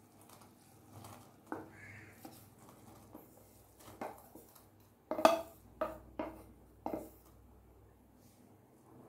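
Stainless-steel bowl and spoon knocking and scraping against each other and the saucepan rim as boiled vermicelli is pushed out into the custard. Scattered metal clinks, with a quick run of sharper, louder knocks about five to seven seconds in.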